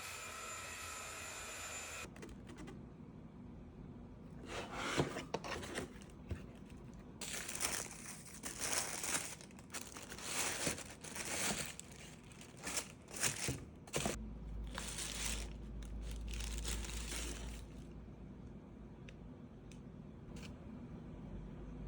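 Packaging crinkling and tearing in a run of irregular rustling bursts, from about four seconds in until about fourteen seconds in, followed by a low steady hum for a few seconds.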